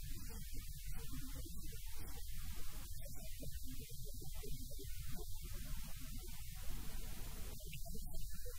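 Steady low electrical mains hum with a faint hiss on the audio line.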